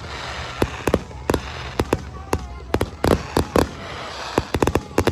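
Fireworks shells bursting overhead in quick, irregular succession: well over a dozen sharp bangs, coming thickest about three seconds in and again near the end.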